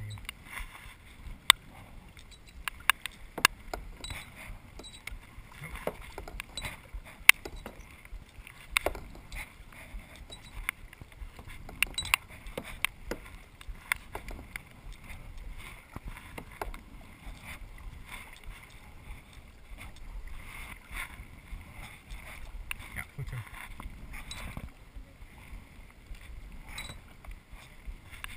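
A kayak being paddled: paddle strokes in the water, with many irregular sharp clicks and knocks.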